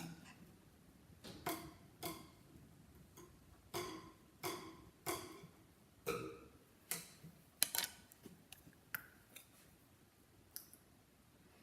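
A run of about a dozen short, hollow clicks or pops, unevenly spaced, each with a brief ringing tone.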